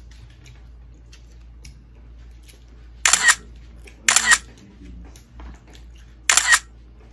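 Camera shutter sound, three short snaps: two about a second apart starting about three seconds in, and a third near the end, over a faint low hum.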